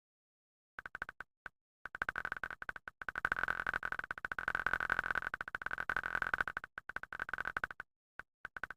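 A short fart sound effect repeated extremely fast, the copies piling into a dense electronic-sounding buzz on one high tone. It starts as scattered clicks, becomes a continuous stream from about two seconds in, and thins back to scattered clicks near the end.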